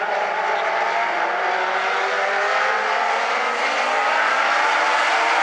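A pack of Legends race cars running together around a paved oval, their motorcycle engines sounding at once as overlapping engine notes that rise and fall in pitch as the cars accelerate and pass, growing slightly louder toward the end.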